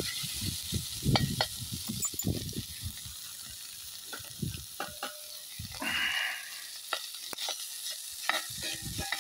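A knife blade scraping and stirring diced corned beef hash in a cast-iron skillet while the meat sizzles as it fries. The scrapes come in quick strokes through the first few seconds and again near the end.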